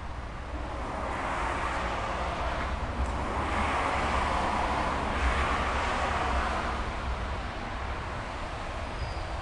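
A road vehicle passing by: a rush of tyre and engine noise that swells over the first few seconds and slowly fades away.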